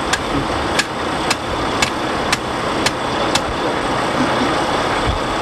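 Sharp metal clicks about twice a second from a hand tool worked on the wheel of a wheel loader during a tyre change, stopping about three and a half seconds in, over a steady engine-like drone.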